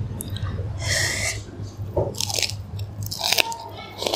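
Close-miked eating: crisp crunching chews and bites of fresh lettuce and boiled prawns, coming about once a second.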